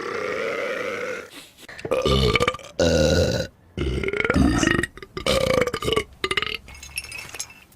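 Cartoon characters burping: one long drawn-out belch, then a run of about six shorter loud belches one after another.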